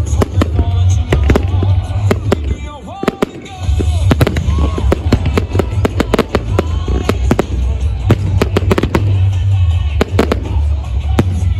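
Aerial fireworks bursting: many sharp bangs in quick succession over a low rumble, with a short lull about three seconds in.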